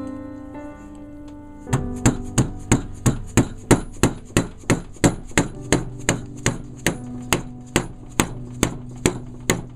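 Hammer blows on a steel axe head, about three a second with a ringing clang, knocking the head off its wooden handle once the wedge has been dug out. Quiet sustained music plays before the blows start.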